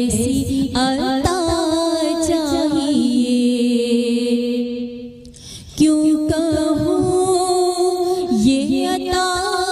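A woman singing a naat, an Islamic devotional song in praise of the Prophet, in long held notes with bending ornaments. The singing drops away briefly a little past five seconds in, then comes back on a new held note.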